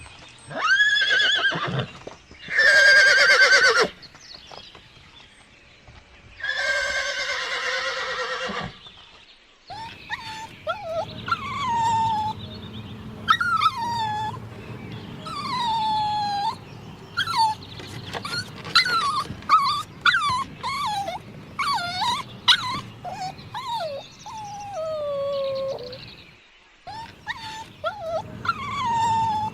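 Animal calls: three longer pitched cries in the first nine seconds, then a chorus of many short cries, each falling in pitch and overlapping one another, over a low rumble.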